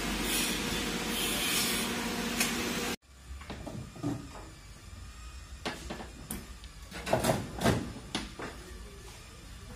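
A steady hiss with a faint hum that cuts off suddenly about three seconds in. After it come scattered knocks and clatters, the loudest a cluster near the end, from hands working on a Jeep Wrangler's shattered windshield and its frame.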